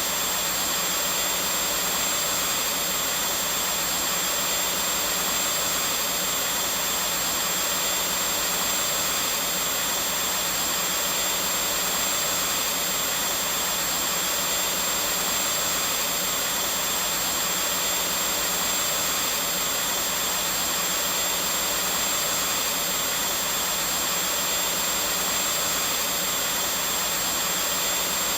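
Vacuum cleaner running steadily, a constant rushing hiss with a thin high whine from its motor.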